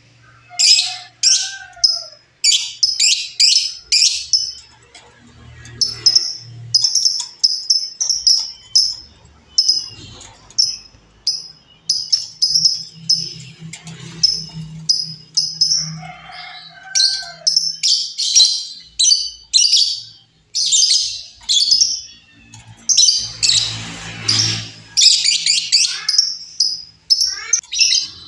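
Female lovebird calling: sharp, high chirps repeated two or three times a second, broken every so often by fast chattering runs.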